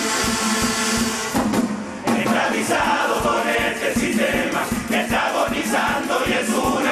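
A murga's kazoos and voices holding a final chord over drum beats, cutting off about a second and a half in. Then a crowd cheering and shouting, with chanting voices.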